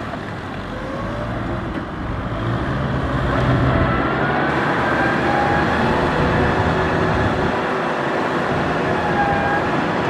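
Kubota M6040SU tractor's diesel engine running steadily under load while pulling a disc plough through wet mud, growing louder over the first few seconds and then holding steady.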